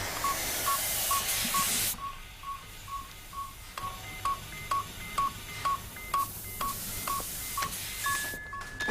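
Electronic hospital monitor beeping about two to three times a second on one pitch. Hissing comes in at the start and again after about six seconds, and a steady higher tone starts near the end.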